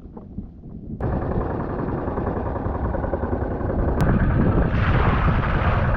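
Fishing boat's engine running steadily under heavy wind and sea noise, cutting in abruptly about a second in after a quieter stretch of faint taps. A sharp click about four seconds in, and more hiss near the end.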